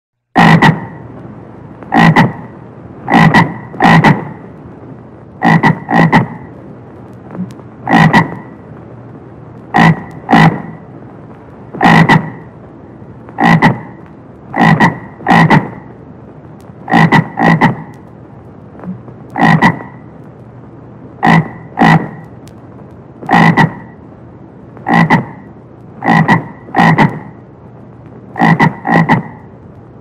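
A frog croaking: short croaks repeated about once a second, often in quick pairs, over a faint steady hiss.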